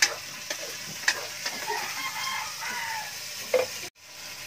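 Metal spatula clacking and scraping against a steel wok as food is stirred and fried over a wood fire, with a sizzle underneath. A rooster crows in the background partway through. The sound drops out briefly near the end.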